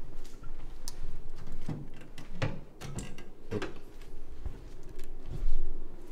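A handful of knocks and clicks over a low rumble, several of them about two-thirds of a second apart, with the loudest knock near the end.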